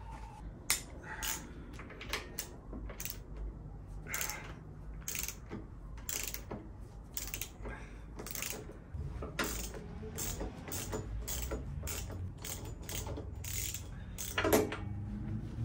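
Hand ratchet clicking in a long run of short, irregular strokes as bolts at a motorcycle's handlebar risers are worked.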